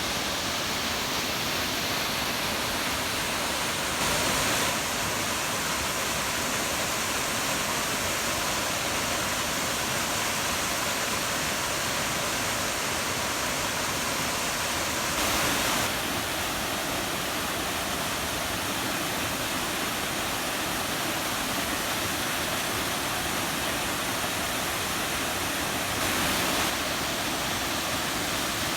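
Waterfall: Materia Falls pouring in a steady, full rush of water, briefly a little louder three times.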